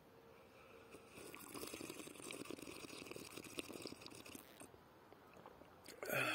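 Distant thunder rolling: a crackling rumble that swells about a second in and dies away after about three and a half seconds.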